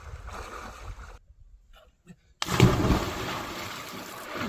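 Water splashing and sloshing, dropping to near silence for about a second midway, then a sudden loud splash that settles back into steady sloshing.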